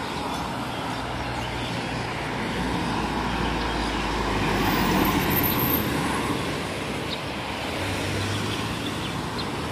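Road traffic: a minibus drives past close by, its engine and tyre noise swelling to a peak about halfway through and then fading, with another vehicle's low engine hum near the end.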